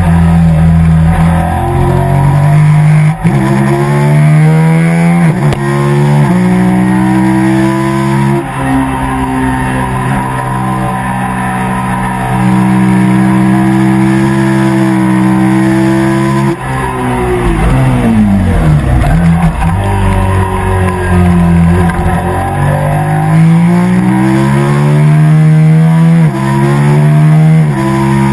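Sport motorcycle engine under hard acceleration, its pitch climbing and dropping back with each upshift. About two-thirds of the way through it falls away with downshifts as the bike slows for a corner. It then climbs again through several quick upshifts near the end.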